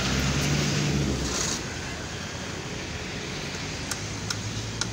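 A vehicle engine running close by over street traffic noise, loudest for the first second and a half. Near the end a hammer starts striking the wooden frame, three sharp knocks.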